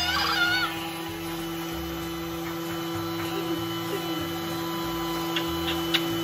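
Thermomix food processor running steadily at speed 10, its maximum, with an even motor hum as it chops pieces of lemon and orange peel.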